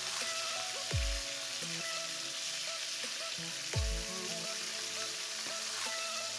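Hilsa fish pieces deep-frying in hot oil in a frying pan, a steady sizzle, under background music with a deep falling bass note about every three seconds.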